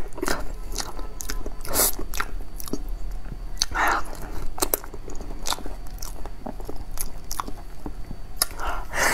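Mouth sounds of biting and chewing soft durian flesh, with many short sharp clicks.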